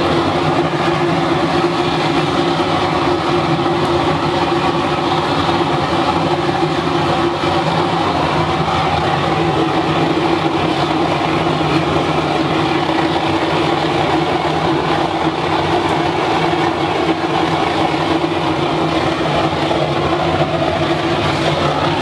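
Waste-oil burner firing at full power into a steel-drum furnace: a loud, steady rush of flame with a steady hum running through it, which sounds like a rocket or a jet engine on takeoff.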